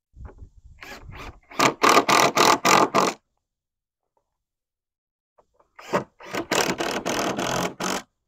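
Cordless power driver sinking screws into eastern red cedar boards without pre-drilling. There are two runs of a few seconds each, made of quick even pulses that start softly and then go hard; the second begins about six seconds in.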